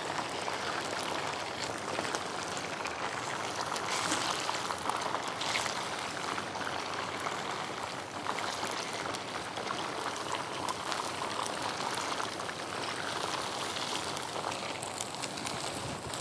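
Rice-flour-coated beef deep-frying in hot oil, a steady bubbling sizzle. The beef is nearly golden brown, almost done.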